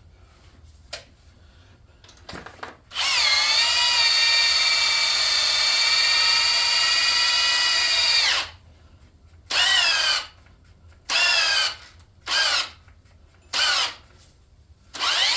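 Cordless drill boring out a stripped head bolt hole in an LS V8 aluminium block. It runs for about five seconds, its pitch sagging as the bit bites and then holding steady, then gives five short trigger blips. The bit drags in the gummy aluminium, which the machinist suspects has been overheated and gone soft.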